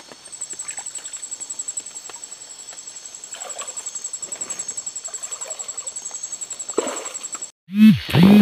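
Night insects chirping: a steady, high, rapidly pulsed trill with faint rustling under it. It cuts out abruptly near the end and is followed by a loud low-pitched burst.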